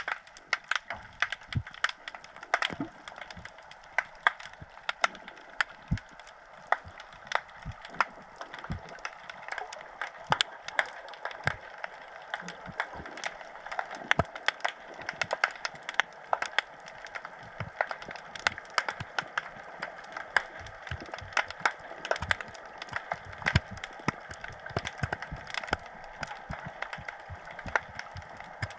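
Underwater sound picked up by a submerged camera: irregular sharp clicks and crackles, several a second, over a steady hiss.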